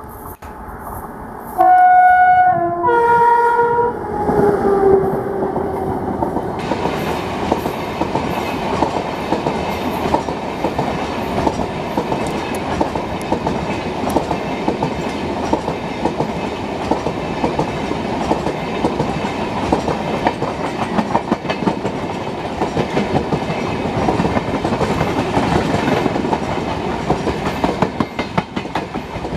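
Electric locomotive's horn sounds two loud blasts, a higher note then a lower one, the lower note sliding down in pitch as the train passes close by. Then express passenger coaches roll past with a steady rumble and rhythmic clickety-clack of wheels over rail joints.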